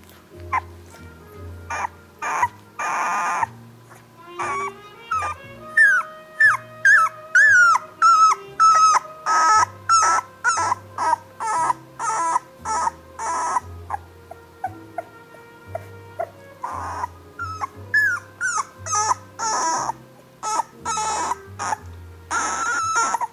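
Nova Scotia duck tolling retriever puppies, 17 days old, whimpering in runs of short high squeaks that fall in pitch, about two a second, with a pause midway. Background music with a steady bass line runs underneath.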